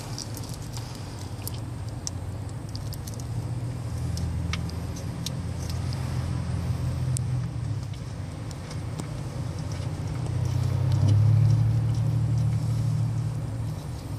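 Faint clicks and ticks of a socket turning a plastic transmission fill plug by hand, under a low rumble that swells twice and is loudest near the end.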